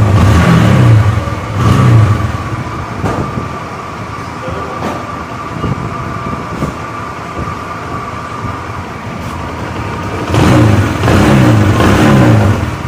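Bajaj Discover's single-cylinder four-stroke engine running in its first start after the tappet clearances were reset, blipped up in revs at the start, settling to a steady idle, then revved again near the end. The tappet tapping is gone: the engine now sounds smooth.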